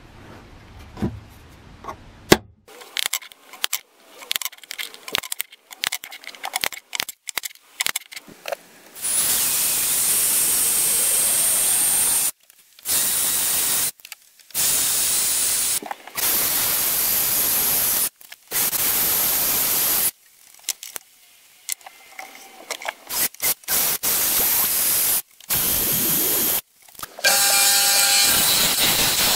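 Sharp metal clicks and taps from hand work on a bare machete blade, then a cordless drill running against the blade in several long bursts that start and stop abruptly. Near the end a disc sander starts up, a steady, louder machine sound with a pitched motor hum.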